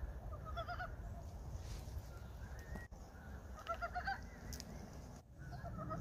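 Frogs giving early-spring breeding calls: three short bursts of rapid clucking croaks, one near the start, one about four seconds in and one at the end, over a low steady background noise.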